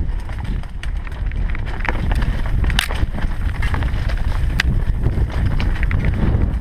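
Mountain bike descending a rough dirt singletrack: steady wind rumble on the action camera's microphone with scattered clicks and rattles from the bike over the bumpy ground.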